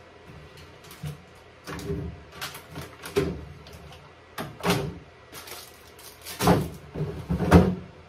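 Clunks and rattles of things being moved about inside an open refrigerator: about six knocks at irregular intervals, the loudest near the end.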